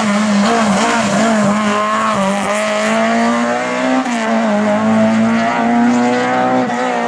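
Race car engine held at high revs through the slalom course, its pitch wavering slightly with the throttle. About four seconds in there is a brief dip and step, as at a gear change.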